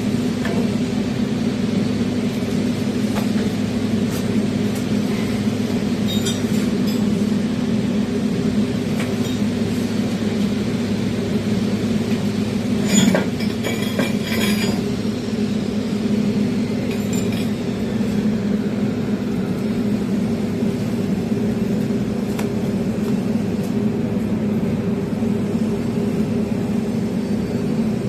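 Stick (SMAW) welding arc burning steadily on a multi-pass 2F fillet weld: a continuous crackle over a low hum, with scattered sharp pops and a louder cluster of them about halfway through.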